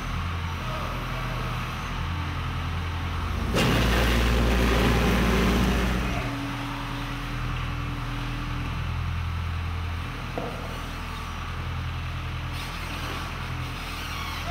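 Diesel engines of construction machinery running steadily, a backhoe loader working beside a tipper truck. About three and a half seconds in comes a loud clatter lasting a couple of seconds as building rubble is dumped into the truck's bed.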